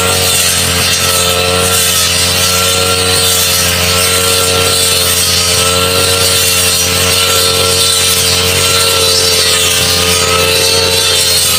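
Backpack brush cutter engine running steadily while its cutting head mows through thick, tall grass. The pitch wavers slightly as the load changes.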